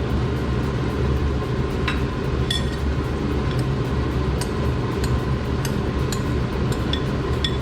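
Kitchen range hood fan running with a steady low hum and a faint whine, loud enough that the cook later calls it too noisy. A few light clinks of a utensil against the pan sound over it.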